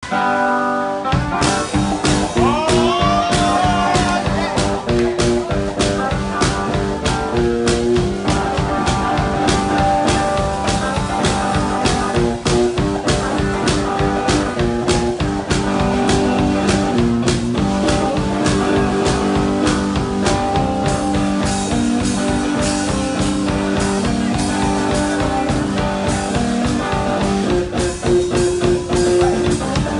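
One-man band playing live: electric guitar over a steady kick-drum and snare beat, in a bluesy rock style. The music starts about a second in.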